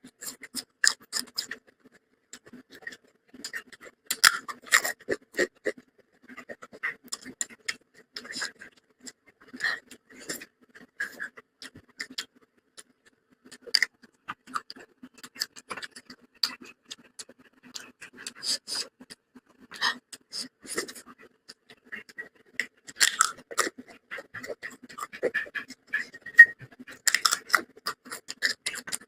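Close-miked mukbang eating sounds: a person chewing a soft, wet meal of rice, dal and spinach-mutton curry, with irregular wet smacks and clicks of the lips and mouth in loose clusters and short pauses between bites.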